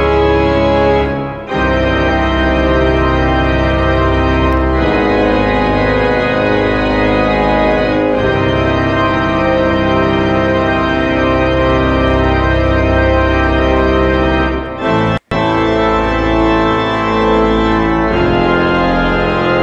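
Background music of sustained organ chords, changing every few seconds, with a momentary cut-out of the sound about fifteen seconds in.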